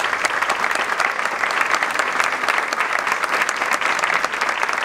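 A crowd of people clapping, a steady dense applause that has just broken out.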